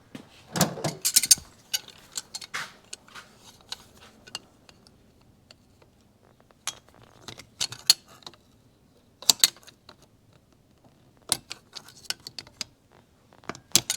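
Scattered metallic clicks and clinks of hand work on a motorcycle engine's shift shaft as a C-clip is worked onto it over a washer, a quick cluster of clicks in the first two seconds, then single clicks now and then.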